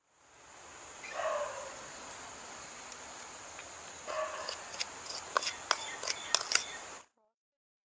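Rural yard ambience with a steady high insect drone. A domestic fowl calls twice, about a second in and again near the middle. In the second half comes a run of sharp clicks and taps from the metal spoon knocking against the plastic spice bowl. The sound cuts off abruptly near the end.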